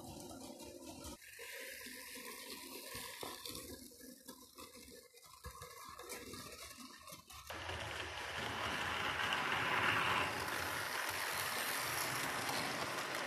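Model railway train running past close by: a steady rushing noise of motor and wheels on the track that starts suddenly about seven seconds in, is loudest around ten seconds and then holds steady.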